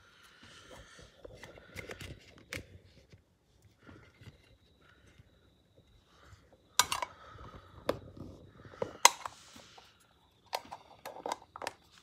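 Hands handling a lighter and its paper packaging: rustling and crinkling, broken by several sharp clicks, the loudest two about seven and nine seconds in, each followed by a short hiss.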